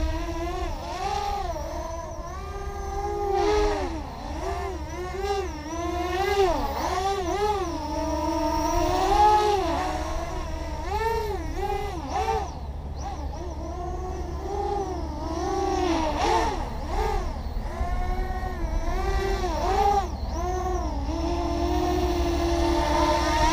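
Racing quadcopter's brushless motors and propellers whining, the pitch swooping up and down over and over as the throttle is worked in aerobatic flying on a 3S battery.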